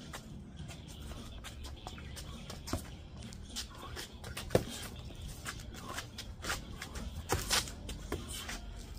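Sparring in boxing gloves: irregular sharp slaps of padded gloves landing on gloves and body during punches and blocks, mixed with sneakers shuffling on concrete pavers. The loudest hit comes about four and a half seconds in, and a quick flurry of hits follows around seven and a half seconds.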